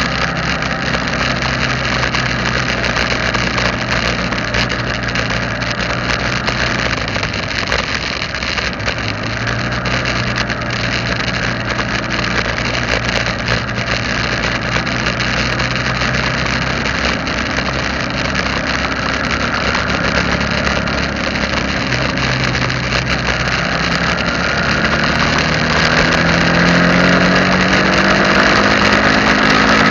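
Engine of the moving camera vehicle running steadily under road and wind hiss, its pitch shifting now and then, rising near the end as it speeds up.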